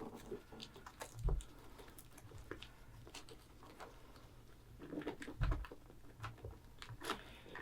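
Faint handling noise of a Velcro strap being worked around a bundle of wires: scattered small clicks and light rustling, with two soft low thumps, about a second in and about five and a half seconds in.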